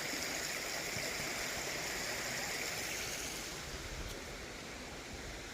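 Stream water running steadily over rocks, a constant rush that fades a little about three and a half seconds in.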